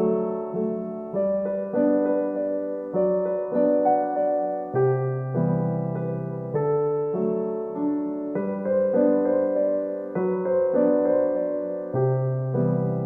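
Background music: a gentle piano piece of single notes and soft chords, each note struck and fading, at an unhurried, even pace.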